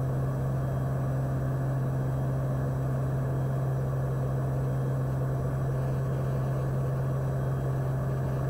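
Cirrus SR20's single piston engine and propeller at climb power, a steady low drone with an unchanging hum and no change in pitch.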